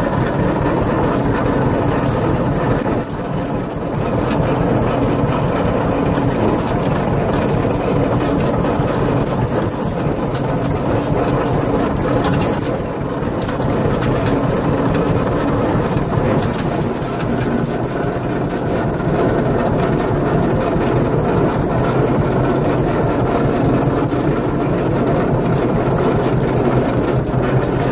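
Tractor engine running steadily while towing a loaded John Deere manure spreader.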